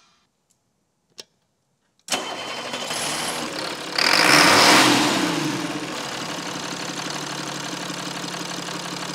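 Engine start sound effect: a couple of faint clicks, then the engine catches about two seconds in, revs up loudly around four seconds in and settles into a steady idle.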